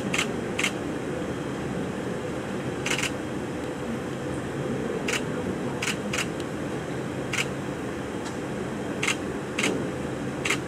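Camera shutters clicking one at a time, about ten sharp clicks at irregular intervals, over a steady background hum.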